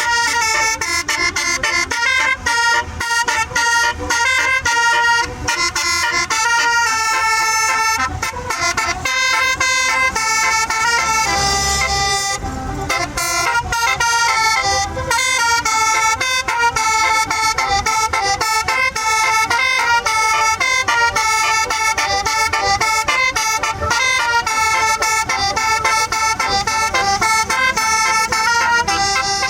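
A tour bus's basuri telolet musical horn playing a song as a quick run of horn notes, with one longer held note near the middle.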